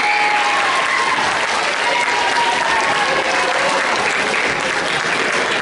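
Audience applauding steadily, with a few voices heard faintly over the clapping.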